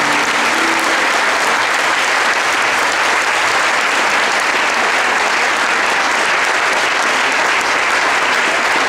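A large audience applauding loudly and steadily, a sustained round of clapping.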